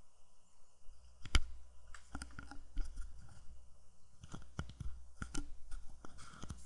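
Keystrokes on a computer keyboard: scattered, irregular key clicks while a line of code is typed, with one sharper click about a second and a half in.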